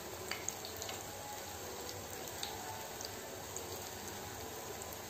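Filled bread chops deep-frying in hot refined oil in a kadhai: a steady sizzle with a few small crackles.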